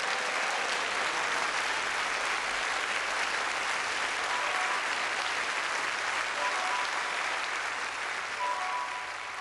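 Studio audience applauding steadily, thinning out near the end. A few soft notes of an instrumental intro come in under the clapping in the second half.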